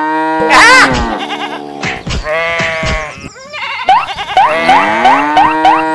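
Sheep bleating: several long, loud calls whose pitch rises and falls, dubbed over the toy-animal footage as a sound effect. From about halfway, a regular run of short rising notes plays under the bleating.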